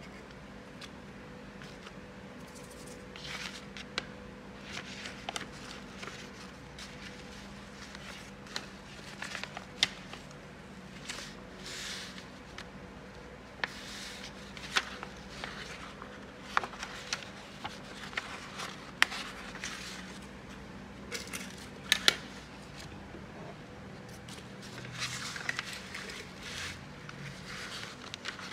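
Paper rustling and crinkling as sheets are handled and folded, with scattered sharp clicks and short crackles from the handling, over a faint steady hum.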